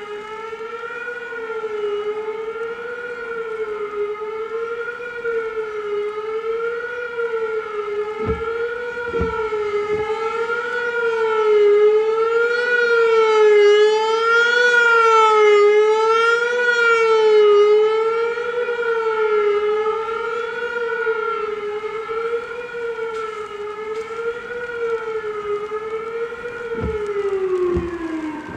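Whelen WPS-3000 electronic tornado siren sounding its Attack signal: a single tone wavering rapidly up and down in pitch, over and over. It grows louder through the middle. Near the end the pitch slides down as the signal ends.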